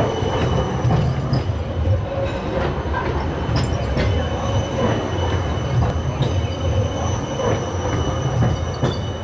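A city tram rolling slowly past close by: a steady low rumble with a thin, steady high-pitched squeal above it and scattered light clicks from the wheels on the street rails.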